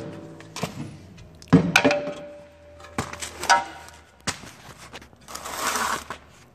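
Aluminum bash plate being unpacked and handled: several knocks and clanks, the loudest about one and a half seconds in and followed by a short metallic ring, then a rustle of packaging near the end.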